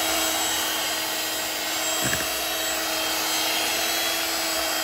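Electric stand mixer running steadily at speed, its balloon whisk beating egg whites in a steel bowl: an even motor hum under a whisking rush. The whites are at the soft-peak stage of making meringue.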